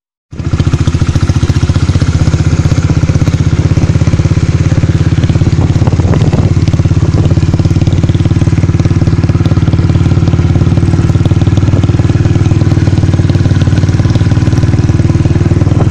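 Motorcycle engine idling, loud and steady with a fast even firing pulse, cutting in abruptly just after the start.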